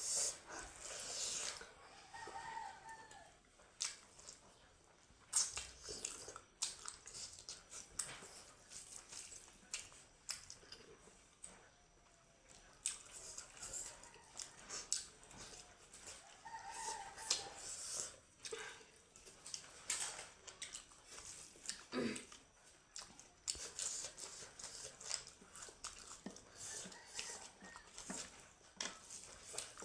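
Close-miked chewing and mouth clicks of someone eating smoked pork, with a chicken clucking now and then in the background.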